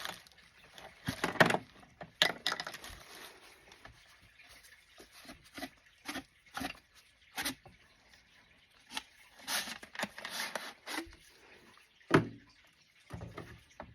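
Intermittent clicks, taps and short rustles from small metal rifle parts being handled.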